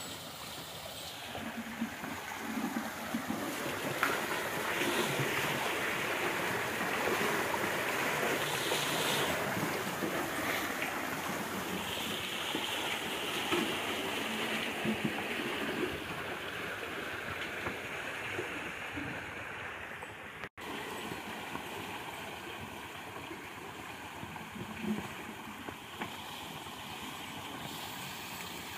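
Water spilling and splashing from the buckets of a bullock-driven Persian wheel into its wooden trough, a steady rushing pour, louder in the first half and cutting out for an instant about two-thirds of the way through.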